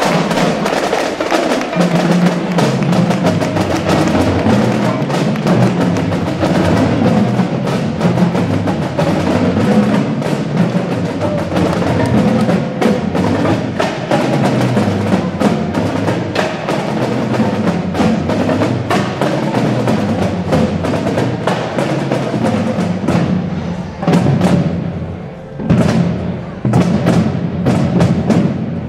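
Marching drumline of snare and bass drums playing a fast, dense cadence. In the last few seconds it breaks into a handful of separate heavy unison hits that end the piece.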